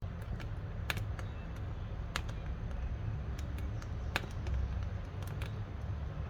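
Wood fire crackling in a wood-burning cookstove: irregular sharp pops and snaps, about a dozen, the loudest three coming roughly a second apart, over a steady low rumble of the burning.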